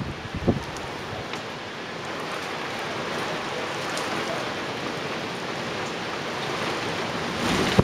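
Cloudburst: heavy rain falling in a steady hiss over tiled rooftops. A gust of wind buffets the microphone in the first half-second.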